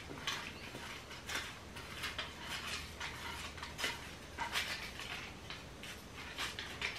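Hands rummaging through folded paper slips in a wooden bowl: faint, irregular rustling and crinkling of paper with light clicks.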